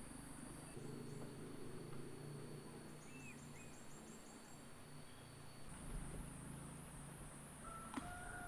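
Faint, steady high-pitched chorus of insects such as cicadas or crickets, with a few short bird chirps.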